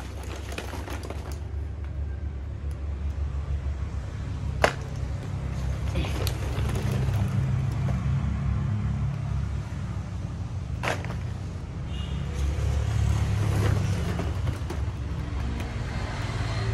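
A steady low rumble under the clatter of hollow plastic play balls shifting and the rustle of plastic blister packs as a hand digs through a box of balls. Two sharp clicks stand out, one a little before halfway and one about two-thirds of the way in.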